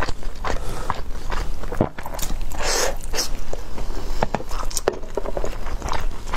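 Close-miked chewing of sticky glutinous-rice shumai, with irregular wet mouth clicks and lip smacks. There is one longer wet smacking sound about three seconds in.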